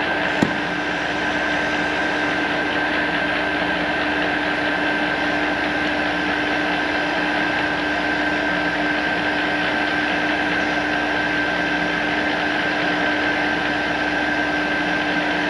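Metal lathe running in low gear with a steady whine, turning a motor shaft, while a handheld gas torch hisses as it heats the part for a shrink fit. A single sharp click about half a second in.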